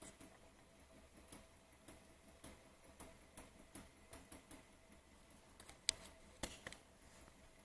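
Faint clicking from a small water-cooled Stirling engine generator running down after its propane is shut off, a light click roughly every half second, with two sharper clicks near the end.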